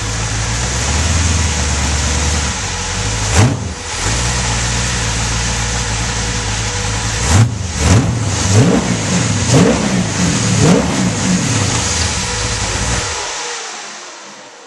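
Monster buggy's engine idling, blipped by the throttle once and then revved several times in quick succession, before it is shut off near the end.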